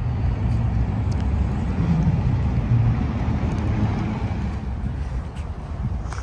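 Steady low vehicle rumble, swelling a little through the middle.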